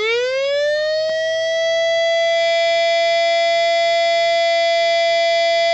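Whelen WS-2000 electronic siren sounding its Alert tone through an 80-watt speaker driver with a hand held over the driver's mouth. The pitch sweeps up over about the first second and a half, then holds as one steady high tone.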